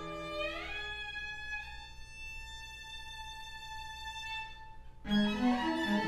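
String quartet playing: a lower held note gives way to a single string line sliding up into a long, high held note that fades away, then about five seconds in the whole quartet comes in louder with quick, short, busy notes.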